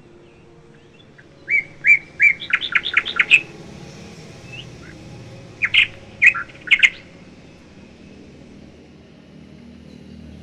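Rose-ringed (Indian ringneck) parakeet giving sharp, high chirps in two bursts: a quick run of about ten a couple of seconds in, and a handful more near the middle.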